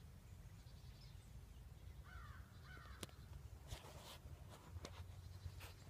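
Quiet outdoor background with a faint bird calling twice in quick succession about two seconds in, followed by a click and a few brief rustles.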